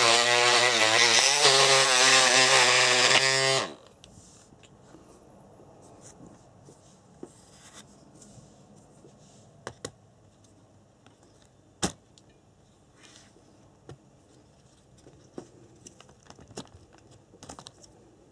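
Etronix 550 12-turn brushed electric motor running the buggy's gearbox, a whine that wavers in pitch and cuts off suddenly about three and a half seconds in. After that come faint clicks and knocks of hands on the gearbox, with one sharper click about twelve seconds in.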